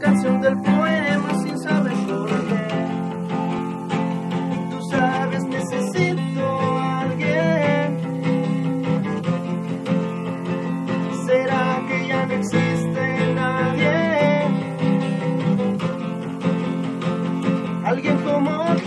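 Acoustic guitar played live without a break, picked chords over a steady low line.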